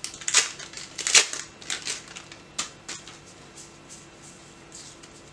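Foil booster-pack wrapper crinkling and tearing in a quick series of sharp rustles, loudest about a second in, followed by fainter clicks of trading cards being handled.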